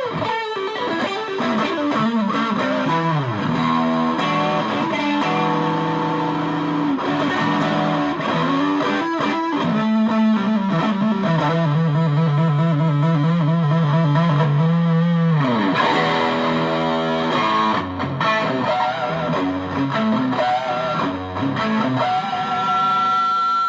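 Electric guitar played through a TC Electronic Dark Matter distortion pedal: sustained distorted notes and phrases, with a stretch of fast repeated picking on one low note in the middle, ending on a held high note.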